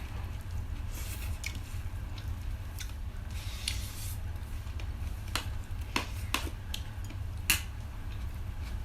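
Close-miked eating sounds: wet chewing with scattered short clicks and taps of food and fingers against a plate, the sharpest click about seven and a half seconds in, over a steady low hum.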